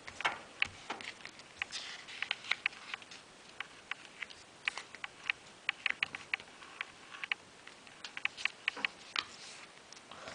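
A sheet of paper being folded and creased by hand. It gives a rapid, irregular run of small crisp clicks and soft rustles as the corners are pressed into the middle.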